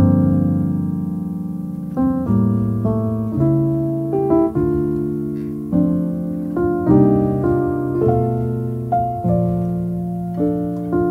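Slow solo piano music: notes and chords struck about once or twice a second, each ringing on and slowly dying away.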